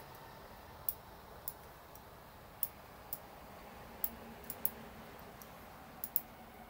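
Computer mouse clicking, about ten short, sharp clicks at irregular spacing over a faint room hum.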